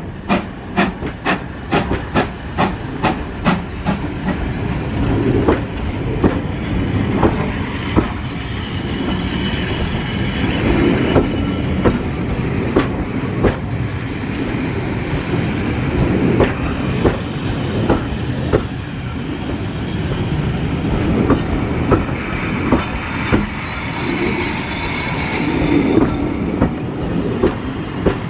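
GWR Manor class steam locomotive No. 7828 passing with sharp exhaust beats, about two to three a second, which fade after the first few seconds. Its train of coaches then rolls by with a steady rumble, the wheels clicking now and then over the rail joints.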